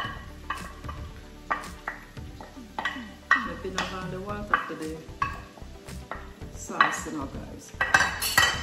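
A metal spoon tapping and scraping chopped onion and sweet pepper out of a plastic tub into cooking pots, with sharp clinks about twice a second, loudest a little over three seconds in and near the end. A faint sizzle of vegetables in a hot pan runs underneath.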